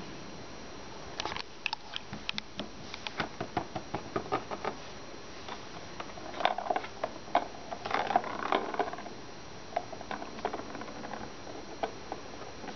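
Light, irregular clicks and taps in quick clusters, thickest about halfway through and thinning out toward the end.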